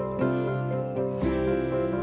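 Instrumental background music with a melody of plucked-string notes over held tones.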